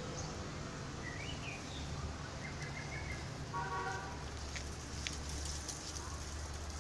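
Outdoor ambience: a steady low rumble with a few short bird chirps about one to three seconds in, then a brief buzzy call a little later.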